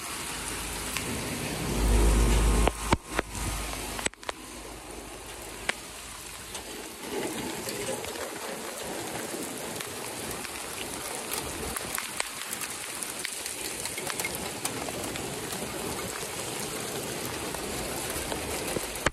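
Heavy rain falling steadily on pavement and metal, an even hiss, with a brief low rumble about two seconds in.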